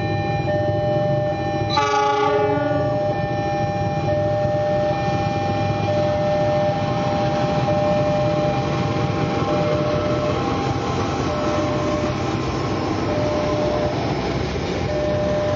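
A diesel locomotive hauling passenger coaches passes: its horn sounds once, briefly, about two seconds in, then the engine and the wheels on the rails run on in a steady rumble as the train goes by. Steady high tones sound alongside, and later one tone comes and goes in short pieces.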